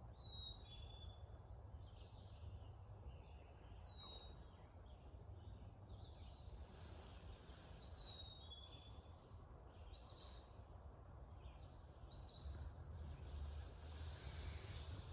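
Faint woodland birdsong. One bird repeats a clear two-note whistle, the second note a little lower, about every four seconds, while other birds chirp now and then over a low steady rumble.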